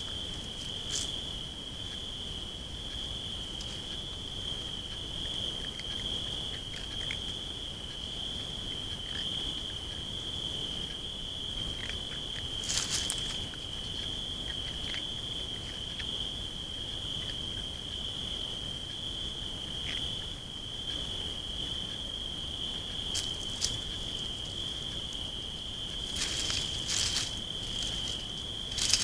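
A cricket's steady, unbroken high trill runs on without pause. Short rustles of dry leaves, an animal stepping and foraging in the leaf litter, come now and then, with a closer run of rustles near the end.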